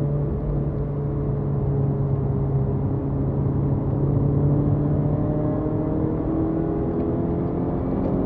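BMW E30 318is's 1.8-litre four-cylinder engine heard from inside the cabin, holding a steady note through a corner and then rising gradually in pitch under acceleration from about halfway on, over tyre and road noise.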